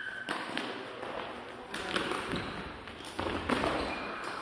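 Shuttlecock-kicking rally: kicks of the shuttlecock and players' footsteps on the hard court floor, a string of dull thuds and sharp taps that echo in the hall, with a couple of short shoe squeaks.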